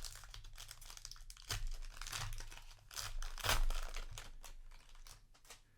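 Foil booster-pack wrapper crinkling and tearing as a trading-card pack is handled and opened. The crackling comes in irregular bursts, the loudest about three and a half seconds in, and dies down near the end.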